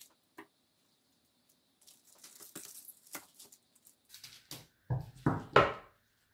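Objects being handled: scattered light clicks and rustling, then three louder knocks about five seconds in, the last the loudest.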